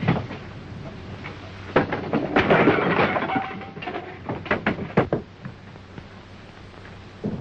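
Fistfight: punches, scuffling and bodies crashing against wooden crates and boards, a string of sharp thuds and knocks that is busiest a couple of seconds in, with a few hard strikes around five seconds. Heard over the steady low hum and hiss of an old film soundtrack.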